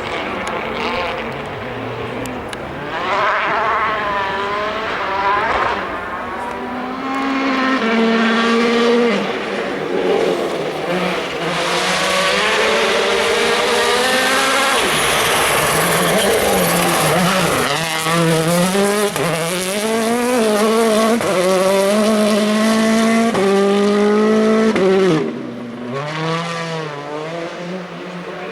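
Rally cars at full throttle on a special stage, the engine climbing in pitch and dropping sharply again and again as it shifts up through the gears. A loud rush of tyre and gravel noise builds in the middle.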